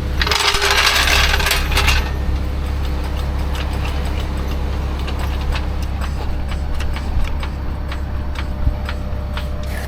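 A steady low engine hum from an idling vehicle. A rush of noise fills the first two seconds, then light metallic clicks and knocks of tools being handled come scattered through the rest.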